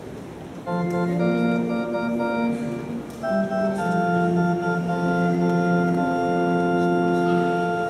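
Electric organ playing sustained chords: a first chord starts just under a second in, and a second, fuller chord from about three seconds in is held until near the end.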